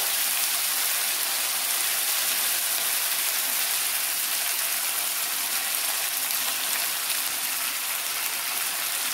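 Curry leaves, coriander leaves and green chillies frying in hot oil in a steel kadai: a steady sizzling hiss, the tempering stage of the dish.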